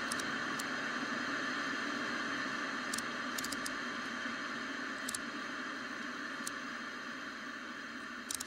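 Steady hiss of a CRT television tuned to an empty channel, showing static, with a few short faint clicks.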